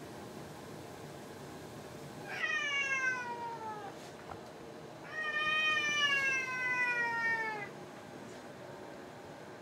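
Domestic cat giving two long, drawn-out meows. The first falls in pitch; the second is longer and steadier, dipping slightly at the end.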